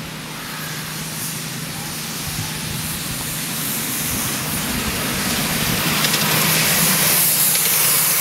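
Miniature steam locomotive drawing a passenger train, its running noise growing steadily louder as it approaches and draws near.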